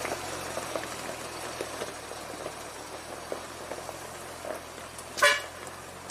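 A single short, loud vehicle horn toot about five seconds in, over a low, steady engine hum with faint ticking, from an old ZIL truck running quietly.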